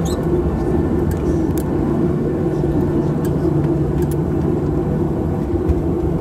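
Steady cabin hum of a Boeing 737-700's CFM56-7B engines at low taxi thrust, heard from inside the cabin over the wing, with a few faint clicks.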